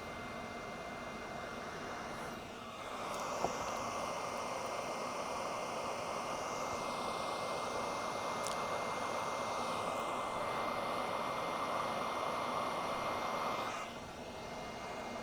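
Hot-air rework gun blowing steadily while shrinking heat-shrink tubing. It gets louder about three seconds in and drops back near the end, with a faint steady high whine throughout.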